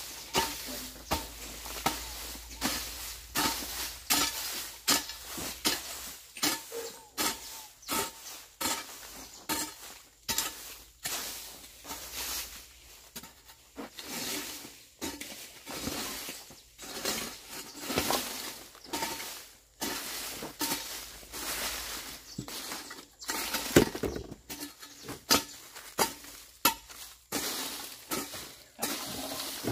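A hand hoe chopping and scraping into soil and weeds, in repeated uneven strikes about once or twice a second.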